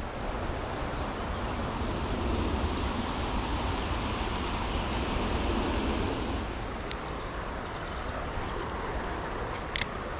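Steady rush of flowing creek water, with two short sharp clicks, one about seven seconds in and one near the end.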